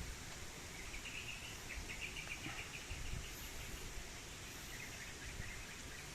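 Steady outdoor background noise with a rapid, high chirping trill, heard twice: about a second in, and again past the middle.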